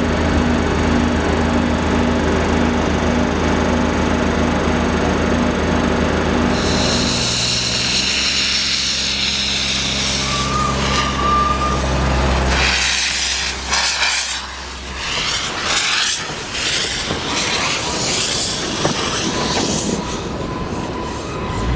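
Förstlingen replica steam locomotive blowing off steam with a steady hiss, then chuffing unevenly as it gets moving. Under the first part runs the steady idling drone of a diesel locomotive alongside.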